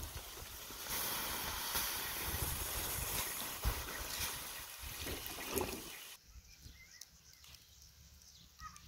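Water poured onto hot wood embers and ash, hissing and sizzling as it puts the fire out. The hiss cuts off suddenly about six seconds in.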